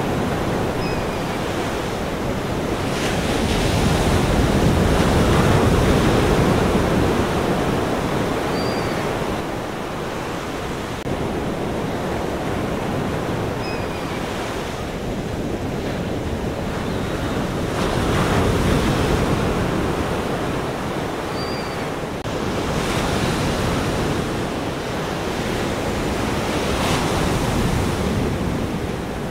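Ocean waves breaking and washing ashore, a continuous surf hiss that swells and eases every few seconds.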